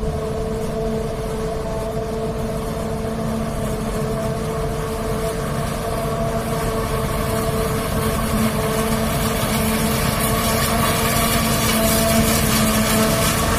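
Claas Jaguar self-propelled forage harvester chopping maize: its engine running under load, with the steady whine of the chopper drum and blower, growing louder as it comes closer. A hiss of cut crop being blown out of the spout builds in the second half.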